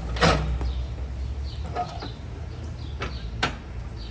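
Parking brake on a Craftsman riding lawn mower being set, the brake pedal pushed down and latched: three short clicks and clunks from the brake linkage, roughly a second and a half apart.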